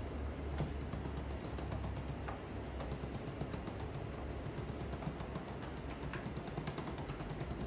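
Hand-cranked pasta machine turning as a sheet of noodle dough is rolled through it: a fast run of faint ticks from its gears and rollers over a steady low hum.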